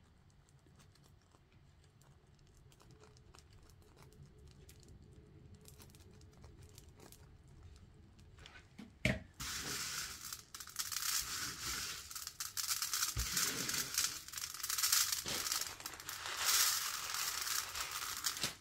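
Loose fake sprinkles pushed and swept by hand across a metal baking sheet, a dense rattling scrape. It starts with a click about nine seconds in, after a quiet stretch of faint small ticks.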